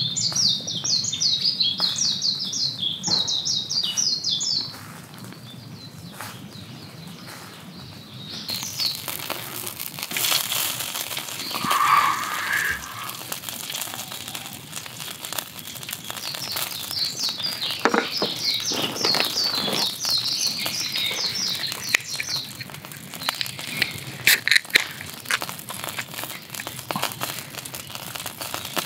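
Songbirds singing in rapid high trills, twice, over the crackle and sizzle of a hamburg steak cooking slowly on a small grill, with fat dripping onto the heat. A few sharp cracks stand out near the end.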